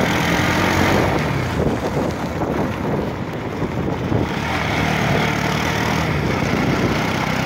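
Vehicle engine running steadily with road noise while driving a rough mountain dirt road, the engine hum easing slightly for a second or two in the middle.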